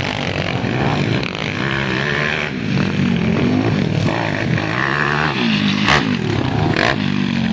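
Dirt bike engine revving up and down in repeated rising and falling sweeps as it is ridden around the track. Two short sharp knocks stand out near the end.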